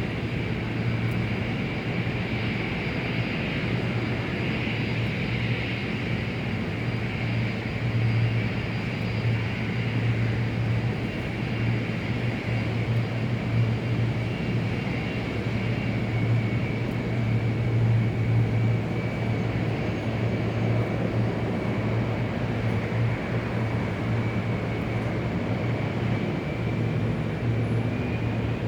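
Large airport exterior ambience: the continuous drone of jet aircraft engines across the tarmac, a steady low hum with a higher whine over it, swelling slightly now and then.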